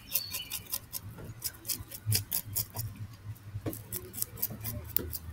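Fillet knife scraping scales off a fish: quick, rasping strokes of the blade against the scales, about three or four a second.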